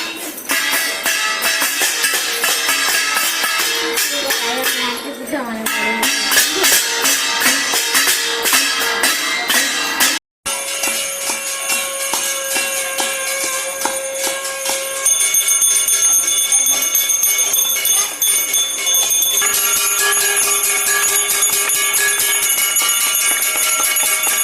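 Many hand bells and metal plates rung and beaten at once: a dense, rapid clanging over sustained ringing tones. It breaks off briefly about ten seconds in, then carries on with steadier ringing bell tones.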